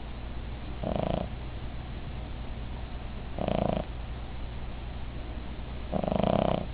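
Cavalier King Charles Spaniel snoring in her sleep: three snores about two and a half seconds apart, the last one the longest. A low steady hum runs underneath.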